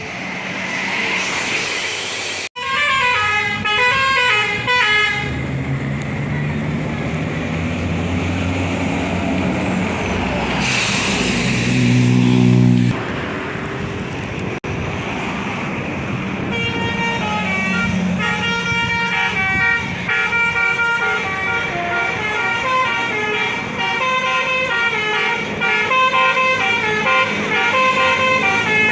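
A bus's multi-tone 'telolet' air horn (Basuri type) playing a tune of quick stepped notes, once briefly about three seconds in and then on and off through the second half. In between, a bus engine runs and swells as it passes.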